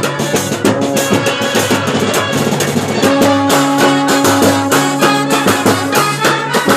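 Kerala band set playing: clarinets, trumpets and saxophone in melody over fast, steady beating of bass drums and side drums. About three seconds in, a loud held low note comes in and sustains under the tune.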